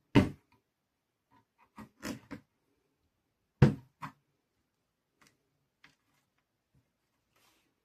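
Irregular sharp knocks and clatters of craft pieces being handled and set down on a table, about eight in all, loudest just after the start and about halfway through.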